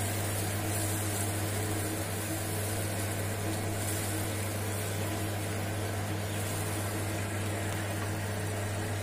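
Onion-tomato gravy simmering and bubbling in a kadai over a steady, even low hum.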